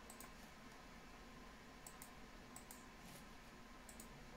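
Faint computer mouse clicks, mostly in quick pairs, about four times over quiet room tone.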